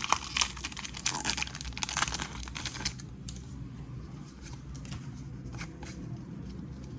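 Foil wrapper of a Pokémon trading-card booster pack being torn open and crinkled for about three seconds, then quieter handling with a few light clicks.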